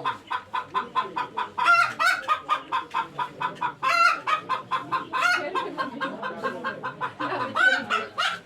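Chickens clucking in a rapid run of short calls, with a louder, drawn-out cluck every second or two.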